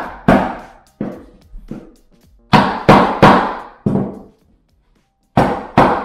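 Hammer knocking a snap-together laminate floor plank into place to close its tongue-and-groove joint tight. About nine sharp knocks, each with a short ringing decay, come in uneven groups with a pause about four seconds in.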